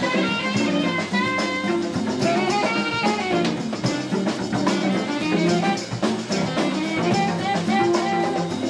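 Live jazz band playing at full tilt: drum kit and congas keep a busy, even beat under bass, keyboards, guitar and saxophone melody lines.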